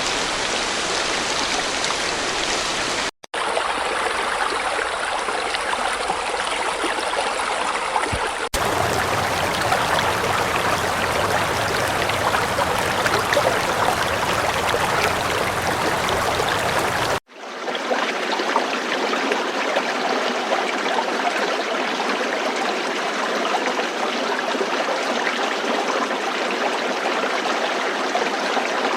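Running water flowing steadily as a continuous noise, over several spliced recordings. It cuts out briefly about three seconds in and again about seventeen seconds in, and changes character at each splice and again about eight and a half seconds in.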